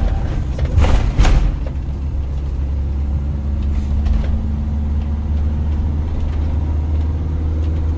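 Motorhome engine running with a steady low drone, with a brief louder noise about a second in.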